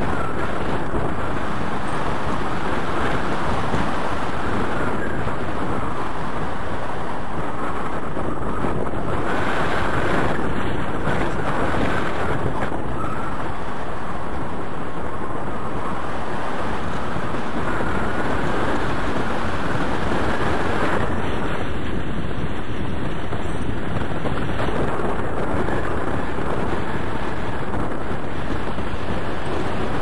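Wind rushing over the camera's microphone as the paraglider flies, a steady loud buffeting that swells and eases a little.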